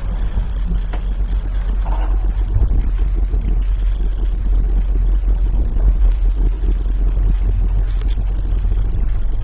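1910 Maschinenfabrik Wiesbaden elevator running, a steady low rumble as the car travels on its wooden guide rails.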